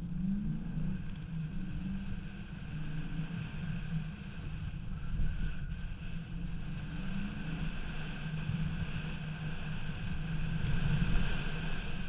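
1995 Pontiac Firebird Formula's 5.7-litre LT1 V8 running hard through an autocross course, its level rising and falling with the throttle. Heard from outside the car at the side mirror.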